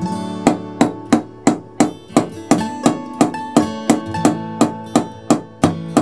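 Small ball-peen hammer tapping the end of a brass rod set in a wooden block: a steady run of sharp metallic taps, about three a second, over acoustic guitar background music.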